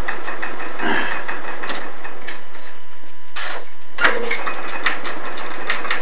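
Quarter-horsepower single-phase Marathon Electric motor running at speed, a steady hum with a thin whine over it and a few light clicks and knocks.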